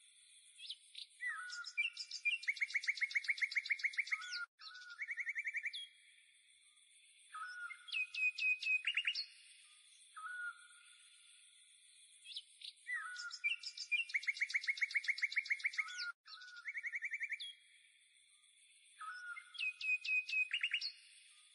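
Songbirds singing: short chirps, hooked whistled calls and fast even trills, over a faint steady high hiss. The same string of calls repeats about every twelve seconds, as in a looped recording.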